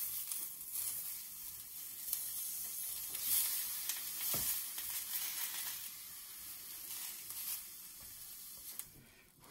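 Folded, filled tortilla wrap sizzling in a hot frying pan as it toasts without oil, pressed down by hand. The sizzle starts suddenly as the wrap goes in and fades toward the end.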